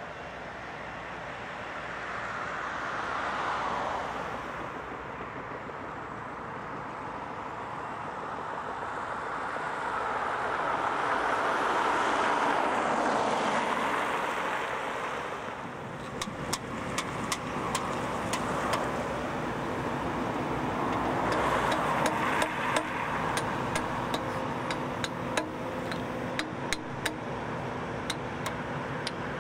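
Road traffic, cars and trucks passing one after another, each swelling and fading away; three pass-bys stand out. From about halfway on, a rapid run of sharp clicks sounds over a steady engine hum.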